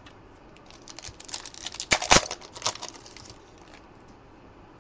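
Trading cards and foil packs being handled by hand: a flurry of crisp papery flicks and rustles, loudest about two seconds in, then fading out.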